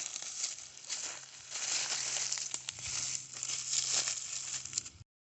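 Irregular crunching and crackling of dry leaves and brush underfoot as people walk through woods; the sound cuts off abruptly near the end.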